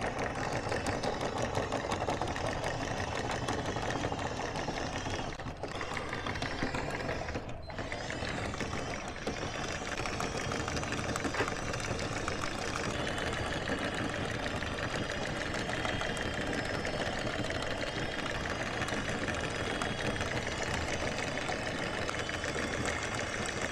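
Electric anchor windlass hauling the anchor chain aboard, the motor running with the chain links clattering over the gypsy, pausing briefly twice, about five and a half and seven and a half seconds in.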